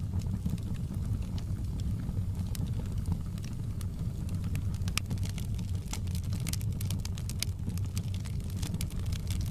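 Wood fire in a fireplace crackling, with irregular sharp pops over a steady low rumble of the flames; the pops come thicker about two-thirds of the way through.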